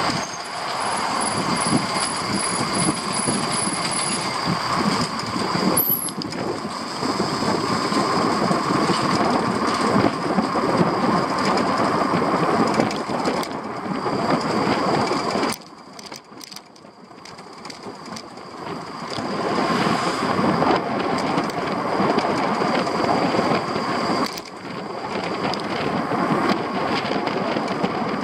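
Rattling, rumbling road noise from a small vehicle riding downhill, with a steady high squeal running through it. The noise drops for a few seconds past the middle, then builds again.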